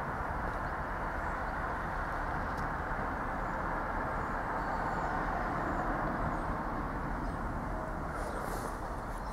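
A train running through the station, a steady rumbling noise with no clear changes.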